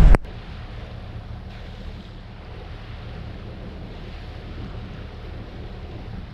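Steady rush of wind and water from a sailboat under way at sea, with a low hum beneath.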